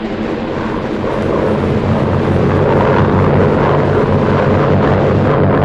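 Steady drone of propeller aircraft engines, swelling over the first couple of seconds and then holding.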